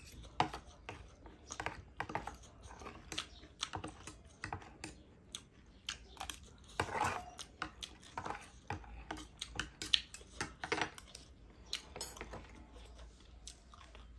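Metal fork and spoon clicking and scraping against a plate in many quick, irregular taps as the last of the noodles are gathered up.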